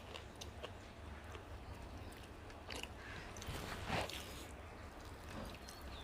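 Faint eating sounds: chewing and biting on mouthfuls of mutton biryani, with scattered small clicks and a brief louder noisy swell about four seconds in.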